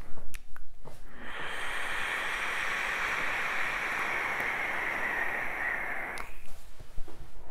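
A long draw on an e-cigarette: a few clicks, then a steady hiss of air and vapour pulled through the atomizer for about five seconds, stopping sharply.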